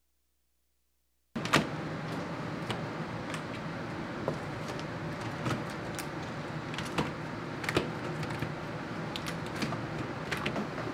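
Silent for the first second or so, then the steady hum of a workroom with irregular sharp clicks and knocks as hand tools and metal trays of fudge are handled on a worktable. The loudest knock comes right after the sound begins.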